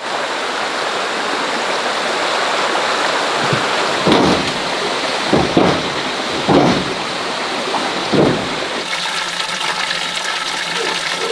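Steady rush of running water, with several dull thumps in the middle.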